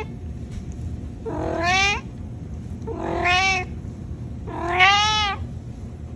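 Domestic cat meowing three times, about a second and a half apart, each meow under a second long and rising then falling a little in pitch.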